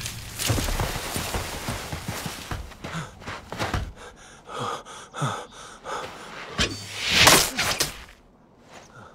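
An arrow whooshing through the air in a loud rush about seven seconds in, amid a man's sharp breaths.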